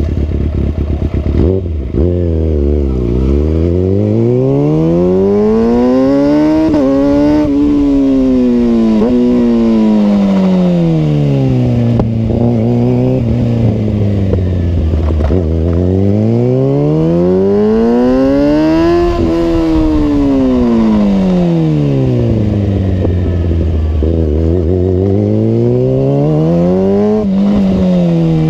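Kawasaki ZX6 inline-four engine running loud through a Two Brothers aftermarket exhaust, revved up slowly and let back down three times, each climb taking about four seconds.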